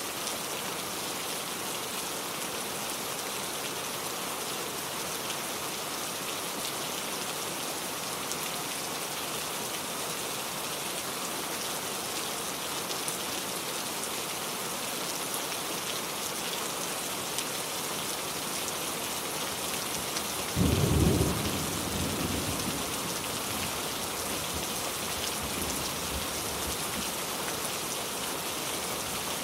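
Heavy rain falling steadily, with a clap of thunder about two-thirds of the way through that booms for about a second and rumbles away over the next few seconds.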